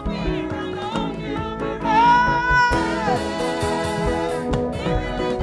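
Gospel praise-and-worship music from a church band, with singing; a long note is held about two seconds in.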